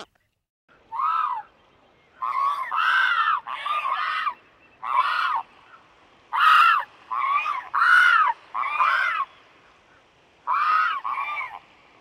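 Pelicans giving a series of about eleven loud honking calls, starting about a second in. Each call is under a second long and rises then falls in pitch, and some come in quick runs of two or three.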